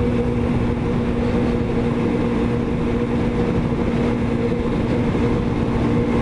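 Motorcycle engine running at a steady cruising speed, its pitch holding constant, with wind noise rushing over the microphone.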